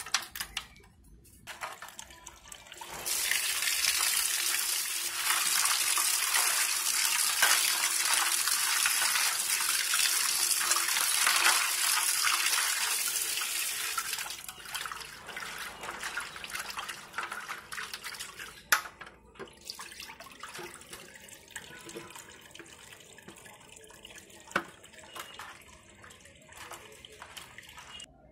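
Water pouring and splashing into an aluminium plate of cut murrel fish pieces as a hand rinses them. The loud pouring stops about halfway through, followed by quieter splashing and handling of the wet pieces, with a couple of sharp clicks.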